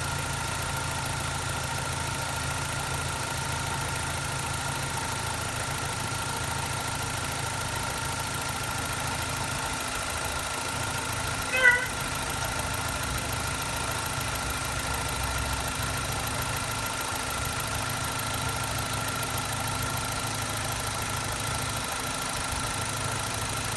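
BMW E90 320i four-cylinder petrol engine idling steadily after a cold start. About halfway through, a dog gives a single short bark, the loudest sound.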